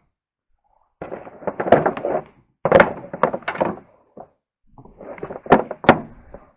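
Tools and loose parts clattering and knocking against each other as a toolbox is rummaged through and items are pulled out, in three bursts of rattles and knocks with two sharp clicks near the end.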